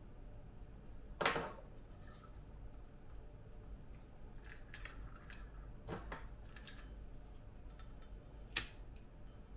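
Disposable lighter's flint wheel flicked while it is held to a carbide lamp's burner to light the acetylene: a sharp scraping click about a second in and another near the end, with fainter handling clicks in between.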